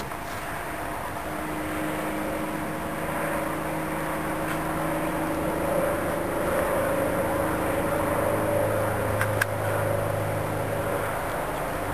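Steady engine drone with a slowly shifting hum that grows a little louder in the middle, with two short clicks about nine seconds in.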